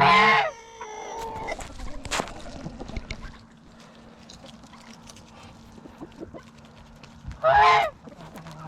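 Farmyard poultry calling: two loud, short cries, one right at the start and one near the end, with quieter calls and small scattered clicks in between.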